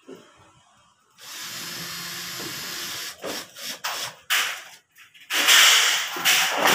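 Cordless drill driving screws up through a ceiling panel into the steel frame: it runs steadily for about two seconds, then in a series of shorter, rougher bursts, the loudest near the end.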